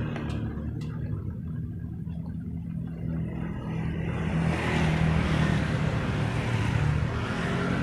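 Motor vehicle engine humming steadily, with a swell of passing road noise a few seconds in and two short clicks near the start.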